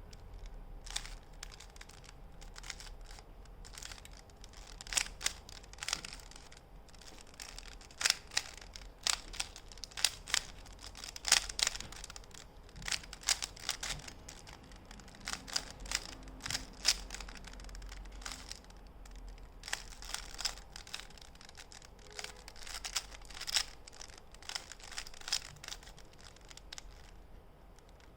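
3x3 Rubik's cube being turned in a solve: its plastic layers click and clack in irregular flurries of quick turns, with short lulls between.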